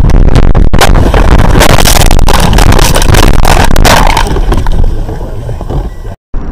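A car crash recorded from inside the car: very loud crunching, banging and scraping with many sharp impacts, heaviest from about one to four seconds in, then easing off before the audio cuts out as the dashcam loses power.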